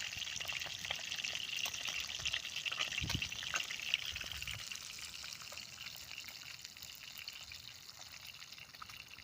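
Food sizzling and crackling in a frying pan, fainter over the last few seconds.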